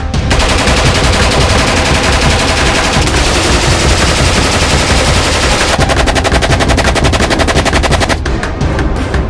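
OZG762 AK-pattern rifle in 7.62x39 firing rapid, continuous automatic fire, the shots coming about ten a second. The firing stops about a second before the end, leaving background music with a beat.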